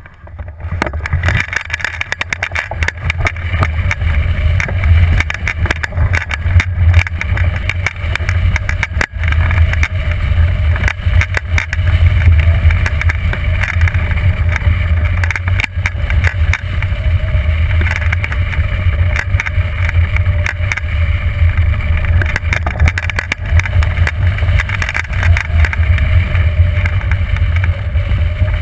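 Wind buffeting the microphone of a camera mounted on a hang glider during launch and flight: a loud, steady rushing rumble that rises within the first second as the launch run begins and the airflow builds.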